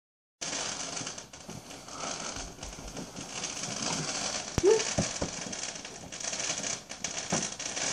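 Distant fireworks crackling, with three sharp pops a little past halfway.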